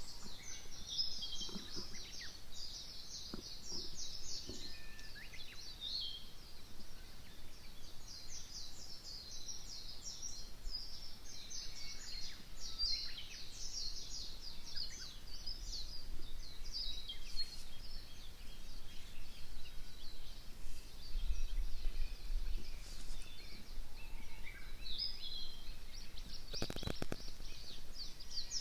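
Wild birds singing and chattering, a dense run of quick high-pitched chirps that goes on almost without a break. Near the end there is one brief louder rustle or crunch.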